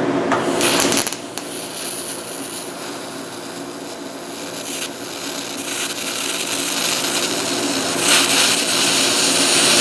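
TIG welding arc on aluminum, run DC electrode positive (DCEP) from a Miller Dynasty 200 DX. It makes a steady buzzing hum under a hiss, and the hiss flares briefly about half a second in and grows louder near the end. The arc runs very hot on DCEP and is hard to control.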